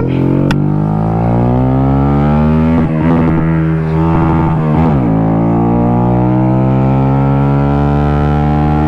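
2018 Honda Grom's 125 cc single-cylinder four-stroke engine pulling under way, its note rising as the bike accelerates. The pitch drops at a gear change about five seconds in, then climbs again.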